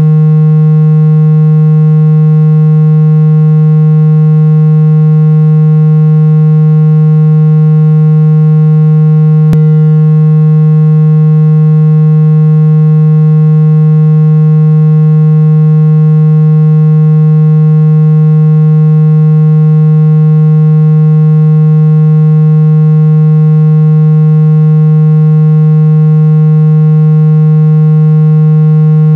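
A steady, very loud, low-pitched buzzing tone, one unchanging pitch with many overtones, generated to vibrate trapped water out of a phone speaker.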